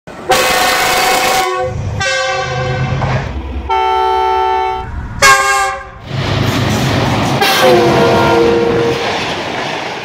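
Pakistan Railways GE diesel locomotive air horns sounding in a run of about five separate blasts, each a steady multi-tone chord, the chords differing from blast to blast, over the low rumble of the locomotives and the rails. The shortest, sharpest blast about five seconds in is the loudest, and a longer blast sounds near the end.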